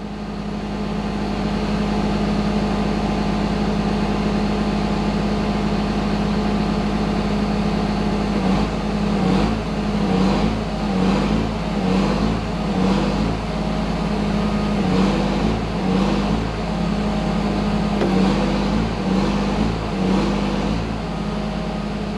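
Engine running steadily to power the hydraulics of a cylinder pressing on an almond shaker's head pin. From about eight seconds in, the engine note rises and falls in a pulsing pattern roughly once a second as the hydraulics take load.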